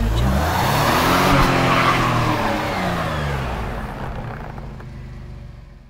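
Tire-spin sound effect: a car engine revving hard while a tire spins on snow and ice. The revs climb over the first second or so and then sink, and the sound fades out over the last couple of seconds.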